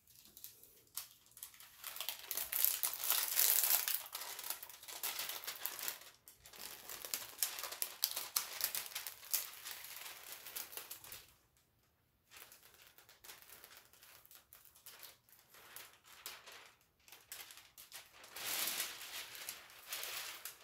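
Clear plastic protective film on a diamond painting canvas crinkling as hands press and smooth it flat. The crinkling comes in long stretches with a brief pause about halfway through, and grows louder again near the end.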